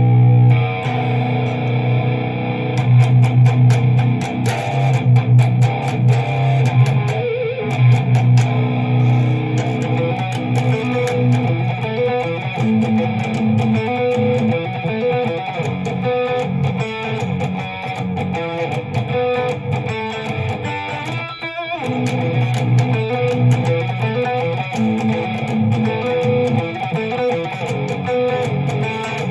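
Greco SS 600 SG electric guitar being played: picked notes and chords over sustained low notes, with a brief pause about 21 seconds in.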